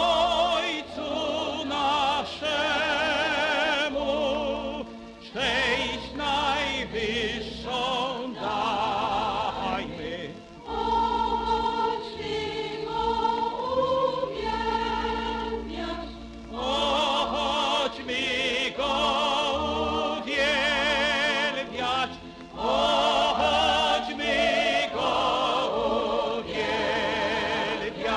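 A recorded Polish Christmas carol (kolęda): singing with a strong, wide vibrato over choir and orchestra, in phrases with short breaths between them.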